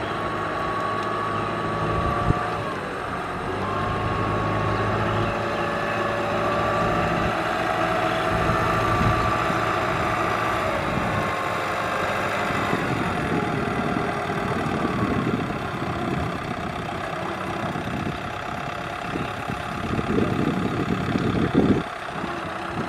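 Kubota tractor's diesel engine running as it sits stuck in deep mud, its pitch dipping and rising a few times as the throttle changes. It comes in louder, uneven surges near the end.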